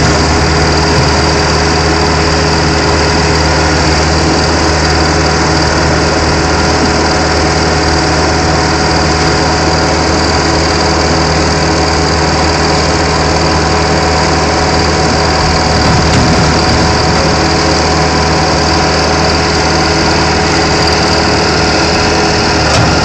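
Engine of the machine powering a hydraulic auger bucket running steadily under load while the auger turns and pushes mulch out of its discharge tube.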